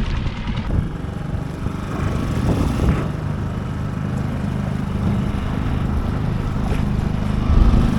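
Small outboard motor running on an inflatable boat under way, with wind buffeting the microphone as a heavy low rumble that swells near the end.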